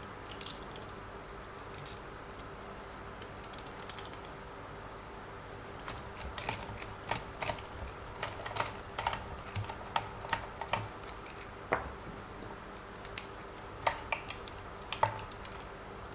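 Light irregular clicks and taps of small plastic RC car suspension parts being handled and fitted together, starting about six seconds in, over a faint steady hum.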